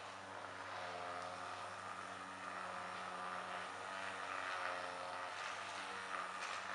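Soft steady hiss of a butane utility lighter's flame held against wood and hot glue, a little stronger about four seconds in, over a steady low hum.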